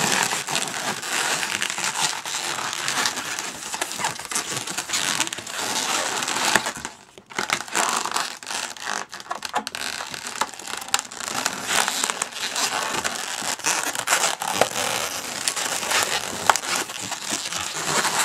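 Inflated latex twisting balloons rubbing against each other in the hands as a clear balloon's tail is stretched and wrapped around a balloon butterfly: continuous rubbing full of small crackles, pausing briefly about seven seconds in.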